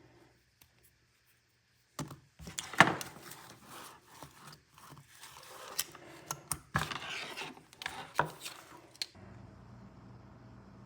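Small hand tools and their packaging being handled and unpacked. Starting about two seconds in, there is a run of irregular clicks, knocks and scraping with some rustling. Near the end a steady low hum takes over.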